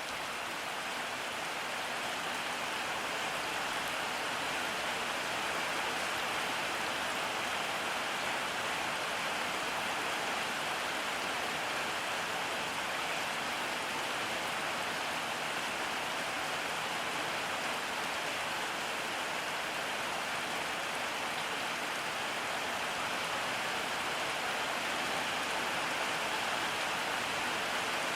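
Steady rainfall, an even hiss of rain with no separate drips standing out, growing slightly louder over the first few seconds.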